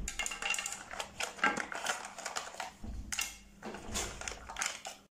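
Hard plastic toy parts clattering: a plastic toy truck's compartment being handled and opened, and plastic sand tools knocking as they are taken out and set down on a glass tabletop. A quick, irregular run of clicks and knocks.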